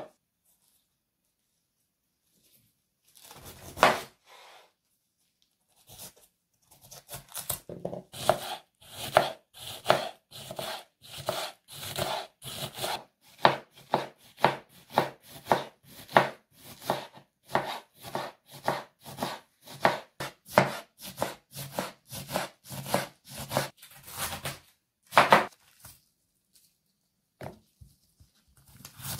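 Kitchen knife chopping a head of white cabbage into shreds on a wooden cutting board: a steady run of sharp chops, about two a second. It begins after a few quiet seconds and a single knock, and pauses briefly near the end.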